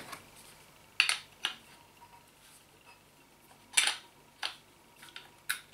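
Angle grinder wheel guard being handled and fitted onto the grinder's gear head: about six sharp, irregular clicks and clacks of hard parts knocking together.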